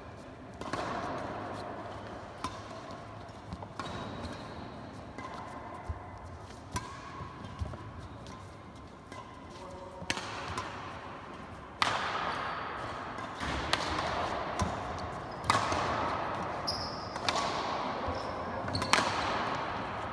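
Badminton rally: racket strings striking the shuttlecock with sharp hits every second or so, echoing in a large hall, along with players' footsteps on the wooden court. The hits come more often and louder in the second half.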